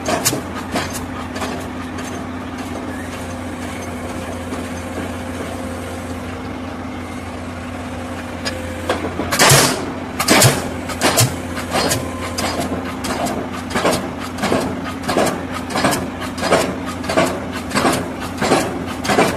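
A converted Komatsu PC 200 excavator's engine idles steadily. About nine seconds in, the diesel pile hammer on its leader fires with a loud bang, then keeps striking the concrete spun pile in an even rhythm of about three blows every two seconds.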